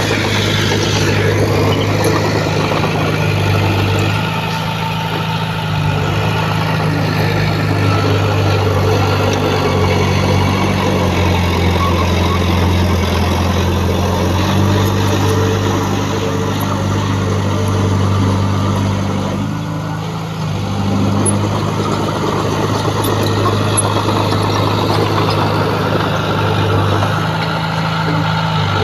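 Heavy earthmoving machine's diesel engine running hard, its pitch stepping up and down every few seconds as the revs change, with dense mechanical noise over it. The level dips briefly about twenty seconds in.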